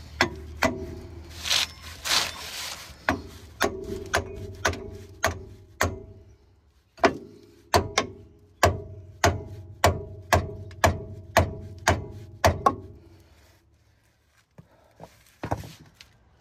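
Socket ratchet turning a bolt: one sharp metallic click with a short ring about every half second, stopping about 13 seconds in. A short rustle comes near the start.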